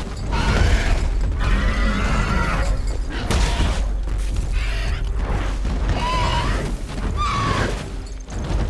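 Film sound of a giant bird creature crying out in short pitched calls over heavy booming hits and creaking, mixed with the score.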